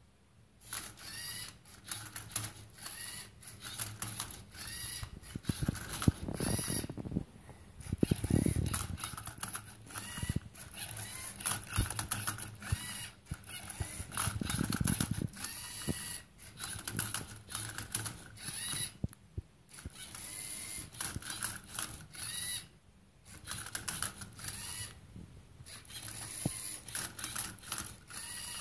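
LEGO Mindstorms EV3 MindCub3r Rubik's cube robot at work: its servo motors whir in short rising and falling bursts as the turntable twists the cube and the arm tips it, with plastic clicking and rattling. It starts about half a second in and pauses briefly a few times between runs of moves.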